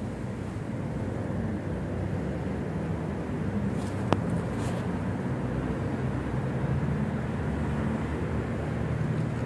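Steady low rumble of outdoor background noise, with one sharp click about four seconds in.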